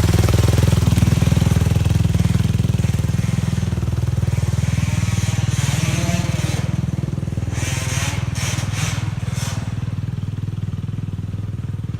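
Off-road vehicle engine running steadily with an even low drone, easing slightly in level. A few short rushes of noise come in the second half.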